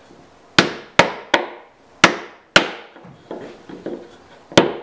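Rubber mallet striking a wooden block to pound a glued bow tie key down into its mortise: about eight sharp knocks at irregular spacing, two softer taps in the middle.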